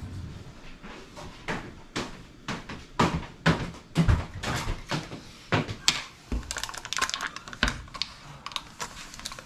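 Irregular clicks and knocks of kitchen items being handled and set down on a counter, about one or two a second. Near the end comes a quicker run of crisp, rustly clicks as the foil lid is peeled off a plastic yogurt cup.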